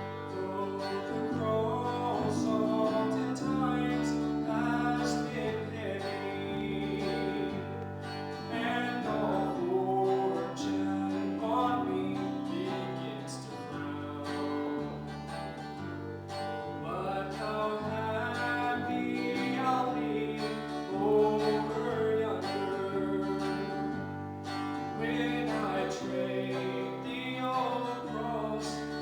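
Music played on guitar with held chords and a moving bass line, with singing over it.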